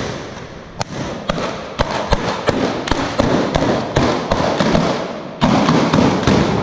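Black-powder arquebuses firing blank charges in an alardo salvo: a long run of sharp shots at irregular spacing, roughly three a second, overlapping and echoing off the buildings, easing briefly just after five seconds and then coming louder again.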